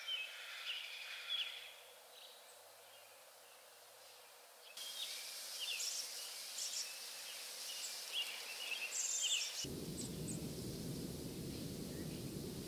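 Outdoor forest ambience: small birds chirping with short high calls over a faint hiss, the background changing abruptly about five seconds in. From about ten seconds in, a steady rushing noise, like wind or distant running water, takes over.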